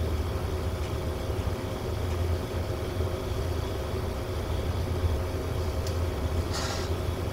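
Steady low room hum with faint steady tones above it. A short hissing scratch comes about six and a half seconds in.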